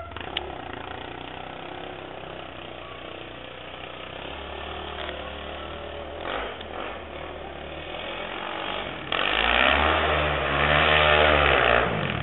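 A 450cc single-cylinder sport quad's engine runs in the background, then from about nine seconds in it revs hard and loud while churning through deep snow. The pitch rises and falls for about three seconds, then drops away suddenly.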